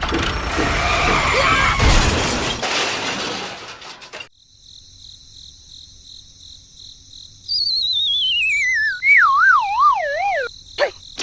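A loud rushing noise for about four seconds stops abruptly. Then comes a steady high chirping tone, and over it, about halfway through, a cartoon-style sound effect: a warbling whistle that slides down from very high to low pitch.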